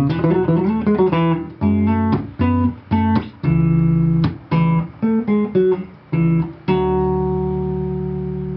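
Solo electric bass guitar played with the fingers: short plucked notes and chords with brief gaps, a quick run of notes about a second in, then a final chord struck near the end and left to ring and slowly fade.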